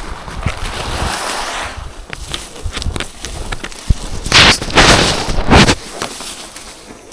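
Rustling of overgrown vegetation and wind buffeting on the microphone, rising to three loud noisy gusts a little past the middle.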